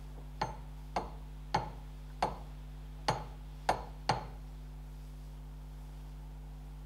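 Seven light, sharp clicks in the first four seconds, unevenly spaced, as fingers and hands knock against the cast front wheel hub of a Ferguson TED20 while grease is worked onto its seal bore. A steady low electrical hum runs underneath.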